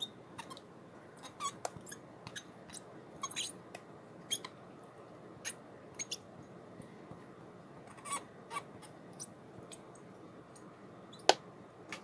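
Thin plastic yogurt cup squeaking and crackling at irregular moments as it is squeezed and tipped over a blender jar, with one sharp click near the end.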